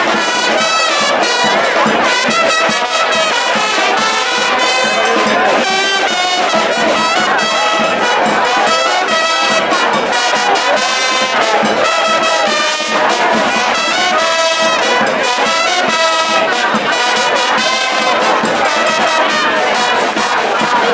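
Charanga street band playing live: trumpets and trombones carry the tune over a steady percussion beat.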